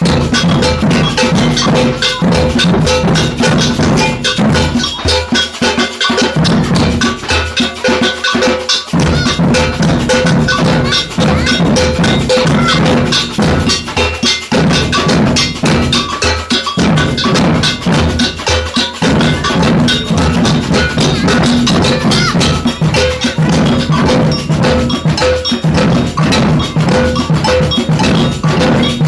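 Percussion band playing a maracatu rhythm: deep bass drums and snare drums pounding a steady groove, with a metal bell clanking a repeating pattern over the top.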